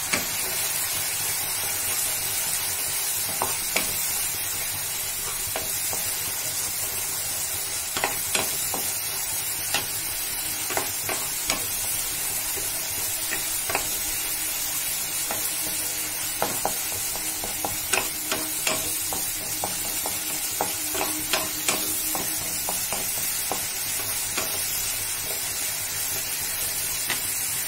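Onion-tomato masala with turmeric and chilli powder sizzling in hot oil in a pan, being fried down (bhuna) while a wooden spatula stirs it, scraping and knocking against the pan at irregular intervals.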